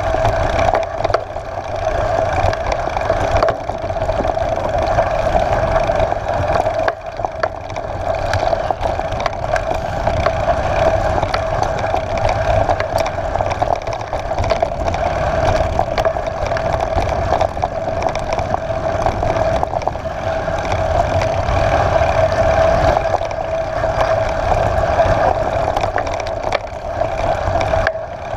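Mountain bike riding a gravelly dirt track, a steady rumble of tyres on stones, frame rattle and wind on the camera.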